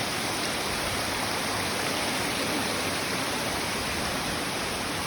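A 30-metre waterfall crashing into a narrow gorge: a steady, even rush of falling water with no breaks.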